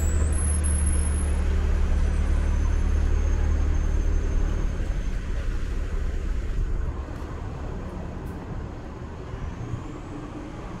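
Street traffic: a heavy motor vehicle's engine rumbling low and steady, then dropping away about seven seconds in, leaving quieter traffic noise.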